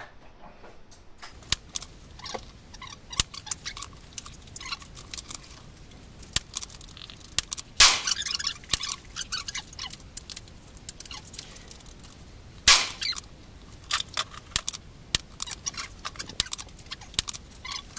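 Two sharp gunshot reports about five seconds apart, the first with a short echo, among frequent smaller clicks and knocks at a shooting range.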